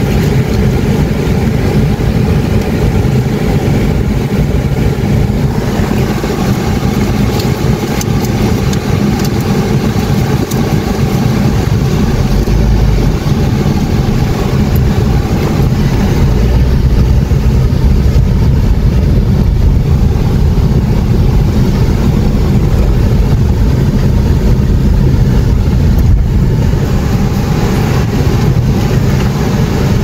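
A car running, heard from inside the cabin with a window open: a steady low engine and road rumble as it waits and then drives slowly over a gravel road.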